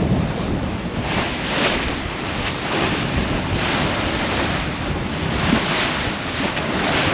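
Sailing yacht under way at speed, water rushing and splashing along the hull in repeated surges, with wind buffeting the microphone.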